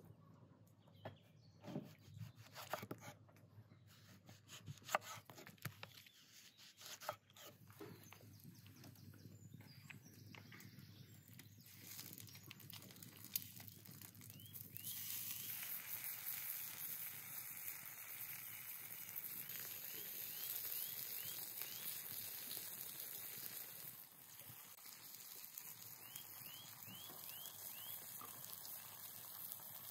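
A knife cutting vegetables on a wooden cutting board, a scattering of sharp taps and knocks. Then, from about fifteen seconds in, a steady sizzle as potato slices are laid on a hot flat cooking stone over a wood fire.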